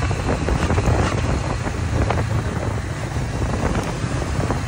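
Motorcycle engine running at a steady cruising speed, its throttle held by a clamp-on throttle lock, with wind buffeting the microphone.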